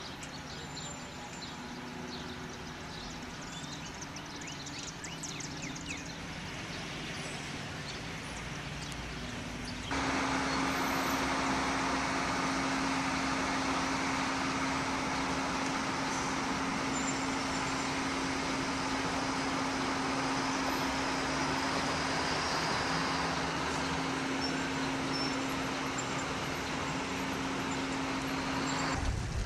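Vehicle engine and street traffic noise. About ten seconds in it jumps abruptly louder into a steady engine drone with one held low tone, which stops just before the end.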